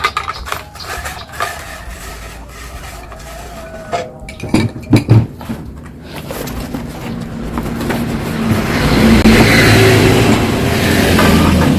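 A motor vehicle engine running, growing louder from about six seconds in and then holding steady, after a few sharp knocks about four to five seconds in.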